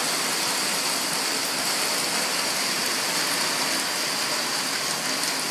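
Heavy rain mixed with hail pelting a tiled patio and running off the roof, a steady even rush of falling water.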